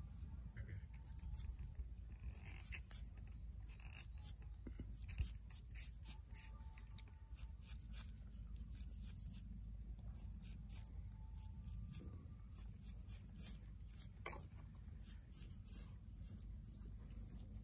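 Straight razor scraping lathered grey stubble off a chin and neck: many short, crisp rasping strokes, over a steady low rumble.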